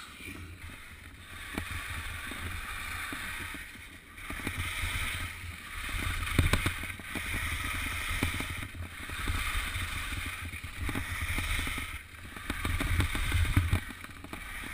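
Skis hissing and scraping over snow in a run of turns, the hiss swelling and dipping about every two seconds, with wind rumbling on the microphone underneath.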